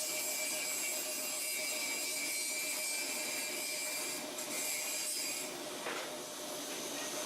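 Carpigiani three-flavour soft-serve freezer running steadily, a machine noise with a steady whine through it.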